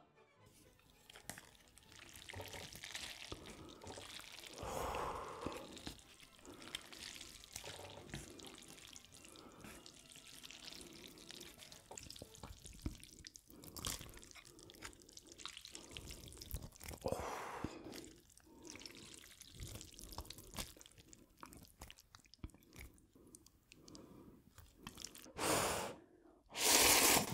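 Close-miked eating of spicy seafood ramyeon: slurping noodles and broth, wet chewing and soft utensil clicks, louder near the end.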